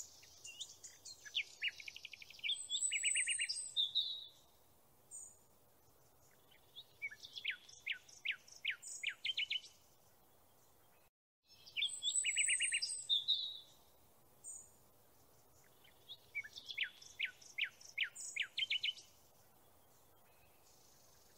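Songbird singing in bursts of rapid trills and quick falling notes. After a brief dropout about eleven seconds in, the same sequence of phrases starts over.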